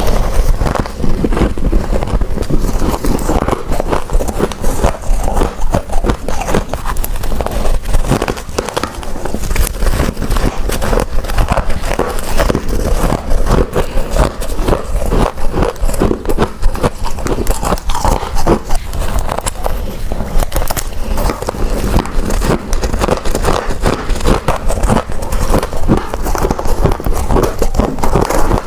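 Biting and chewing of freezer frost mixed with thin ice: a dense, continuous run of crisp crunches and crackles.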